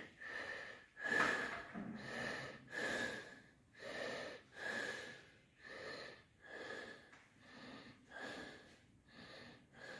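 A person's breathing, heard close up: quick, even breaths in and out, each carrying a faint whistle.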